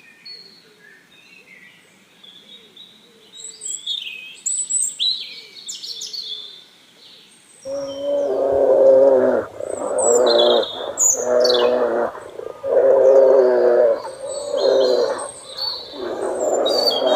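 Birds chirping and trilling. About halfway through, a larger animal starts calling over them in about six long, pitched calls in quick succession.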